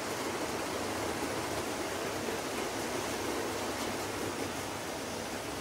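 OO gauge model trains running around the layout, including a long rake of freight wagons: a steady running noise of wheels on track, without distinct clicks.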